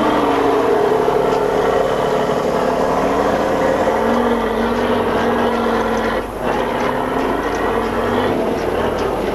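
Tatra 813 Kolos 8x8 military truck's air-cooled V12 diesel pulling hard as the truck climbs a steep dirt mound, its pitch rising and falling with the throttle. The sound drops briefly about six seconds in.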